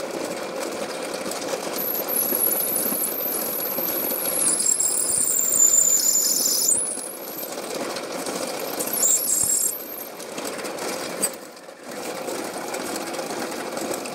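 Benchtop drill press running while a 4 mm bit opens out the pilot hole in a small solid metal bar clamped in a vise. The bit gives a high-pitched squeal as it cuts, from about two seconds in to about seven seconds and again briefly about nine seconds in.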